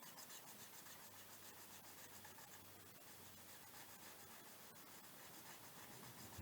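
Near silence: faint steady hiss with a few soft ticks.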